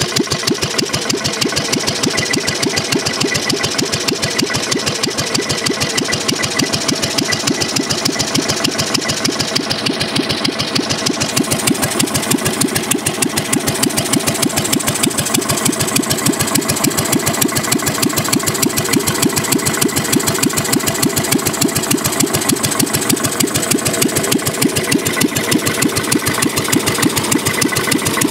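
1957 Cushman Husky single-cylinder, air-cooled flathead four-stroke engine running steadily at idle, a rapid, even beat of firing pulses.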